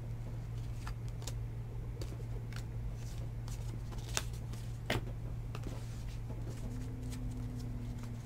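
Stack of 2019 Donruss Elite football trading cards being flipped through by hand, card edges giving scattered light clicks and snaps, with two sharper clicks about four and five seconds in. A steady low hum runs underneath.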